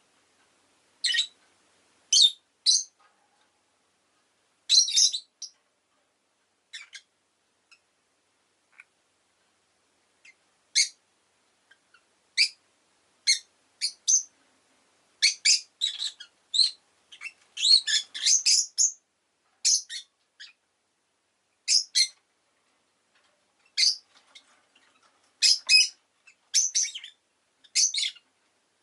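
Rosy-faced lovebird giving short, sharp, high-pitched chirps in irregular bursts, sparse for a few seconds early on and then a quick run of them around the middle.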